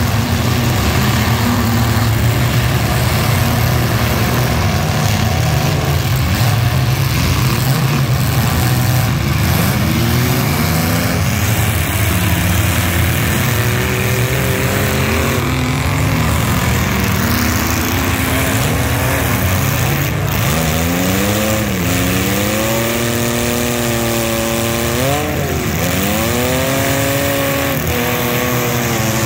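Many compact cars' engines running together in a demolition derby, a steady loud rumble, with engines revving up and down repeatedly, most plainly in the second half.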